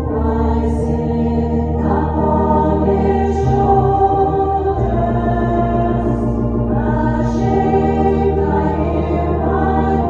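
A slow hymn sung to a sustained accompaniment, the voices holding long notes over steady bass notes that change every few seconds.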